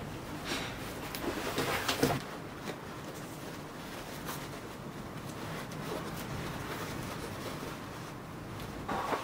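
Cloth rustling and soft handling noises as a fabric inner bag is pushed and adjusted inside a woven bamboo basket. Most of it comes in the first two seconds, followed by quieter rustling over a low steady hiss.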